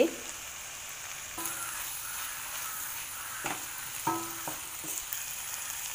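Vegetables stir-frying in hot oil in a pan, a steady sizzle while they are stirred.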